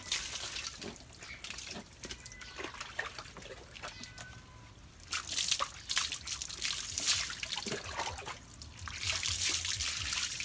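Water poured from a plastic container over a wet dog, splashing and trickling off its coat into a tub of water, in several pours: one right at the start, a longer one about five seconds in and another near the end.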